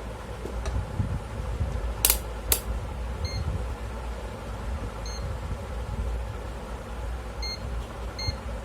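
Two sharp clicks, then four short high beeps from a digital multimeter (HTC DM-85T), one beep each time its rotary function switch is turned to a new position, over a steady low hum.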